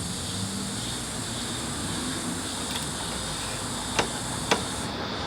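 Steady background hum, with two sharp clicks about half a second apart near the end: a tool knocking against metal while working on a car's rear engine mount.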